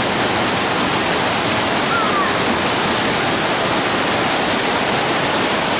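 Fast, shallow river rushing over rocks in white-water rapids: a loud, steady rush of water.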